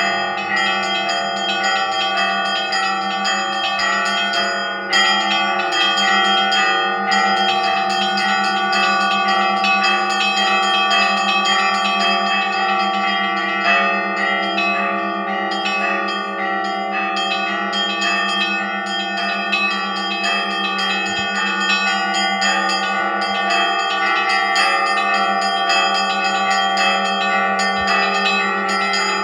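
Russian Orthodox church bells rung in a continuous festive peal: several bells of different pitches struck in quick, overlapping succession over a steady low hum from the largest bell.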